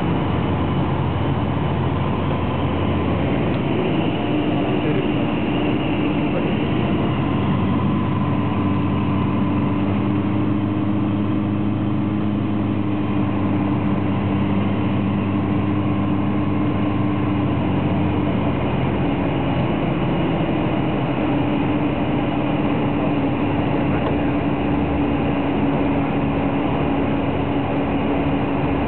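Evektor EV-97 Eurostar microlight's engine and propeller droning steadily, heard from inside the cockpit in flight. The pitch shifts slightly about four seconds in and again about two-thirds of the way through.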